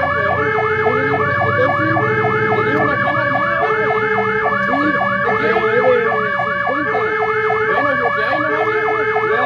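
Fire engine siren on the move: a fast rising-and-falling yelp, about four sweeps a second, running together with a slower two-tone hi-lo pattern, over the low running of the truck's engine.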